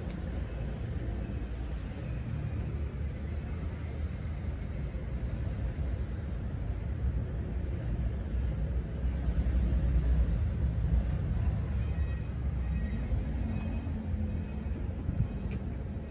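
Steady low rumble of background noise, swelling for a couple of seconds about ten seconds in.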